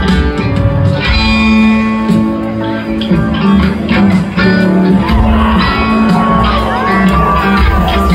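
Live rock band playing a slow instrumental jam: electric guitar, keyboards and a bass holding low sustained notes. Sliding, bending notes come in during the second half.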